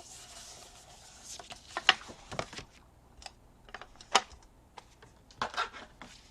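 An ink pad dabbed and rubbed along the edges of a piece of paper on a craft table: scattered light taps and soft rubbing, with sharp taps about two and four seconds in.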